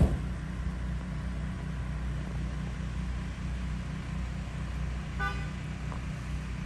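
Low, steady engine rumble of idling utility bucket trucks, with a short horn toot about five seconds in. A sharp thump at the very start is the loudest moment.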